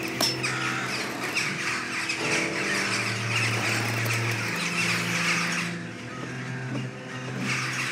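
Film soundtrack: sustained low pitched notes under a dense harsh hiss, the hiss dropping out about six seconds in and returning near the end.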